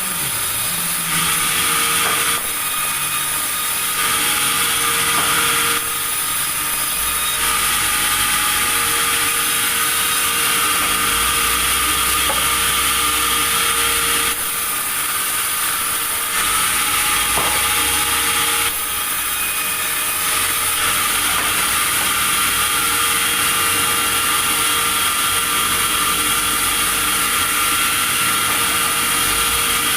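Sawmill saw running and cutting timber: a loud, continuous machine noise with a steady whine, its character shifting every few seconds.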